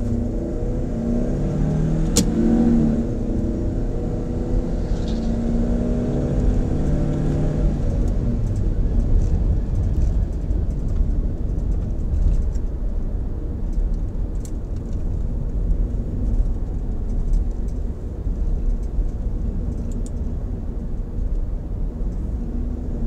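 Nissan X-Trail's 2.5-litre QR25DE four-cylinder engine heard from inside the cabin, revving up under hard acceleration from low speed. The pitch rises, drops at a gear change about three seconds in, and climbs again until about eight seconds in. After that the engine note fades into a steady road and tyre rumble as the car eases off.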